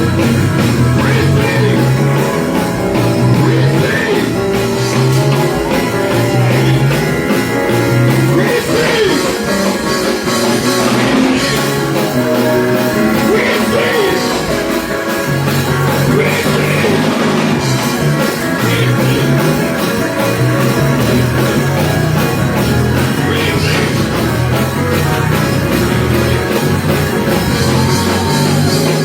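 Rock music with a steady bass line, a full band and a sung or lead melody over it.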